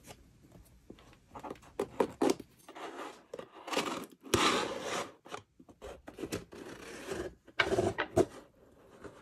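A small blade slitting the tape seal on a corrugated cardboard mailer box, with cardboard scraping and rubbing as the box is handled and opened: a series of short scrapes and rasps.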